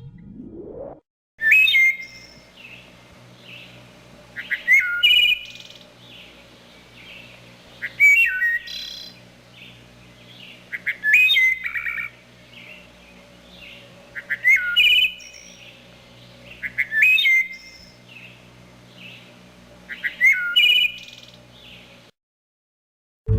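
Wood thrush singing: seven short flute-like song phrases, each ending in a high trill, spaced about three seconds apart over a faint steady low hum.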